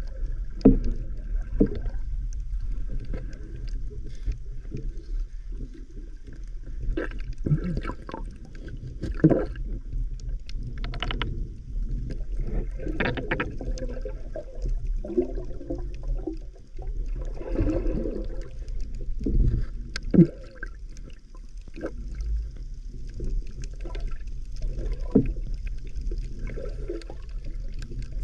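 Underwater sound from a camera carried by a swimming diver: muffled, churning water movement with a steady low rumble, broken by irregular sharp knocks and clicks. The sharpest knock comes about two-thirds of the way through.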